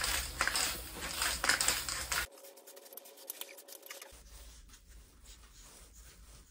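Aerosol spray paint can in use: a loud hissing, clattering sound for about two seconds, then an abrupt drop to faint scratchy handling noise.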